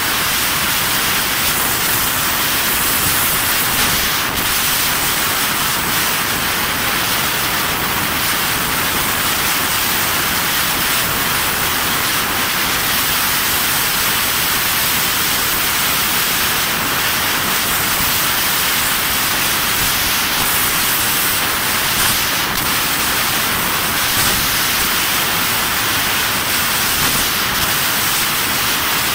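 Fiber laser tube cutting machine cutting a steel tube: a steady, even hiss of assist gas jetting from the cutting nozzle.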